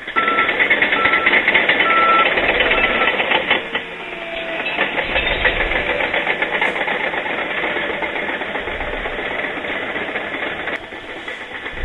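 Bulldozer working: steel tracks clanking and rattling over the diesel engine running. A reverse alarm beeps four times in the first three seconds.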